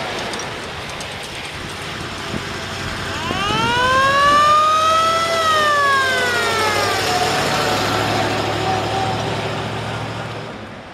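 A 1937 Ford Darley fire engine's siren wailing once, rising in pitch for about two seconds and then falling away, with the end of an earlier wail dying out at the start. The truck's engine runs underneath as it drives off.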